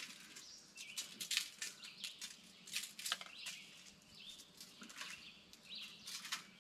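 Spice rub shaken from a shaker bottle over a rack of baby back ribs: faint, irregular rattling shakes. Birds chirp in the background.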